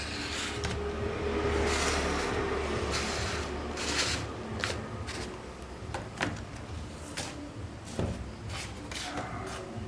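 Handling noises: rustling with a dozen or so sharp, scattered clicks and taps.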